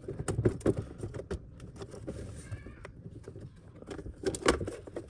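Irregular clicks, taps and light knocks as hands handle the plastic parts of an old-style washing machine opened up for cleaning.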